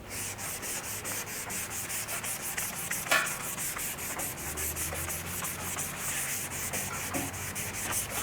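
Hand sanding of primer-surfacer with P320 sandpaper on a sanding block: quick, even back-and-forth rubbing strokes, working down a small bump that can still be felt over an old dent repair. A brief knock about three seconds in.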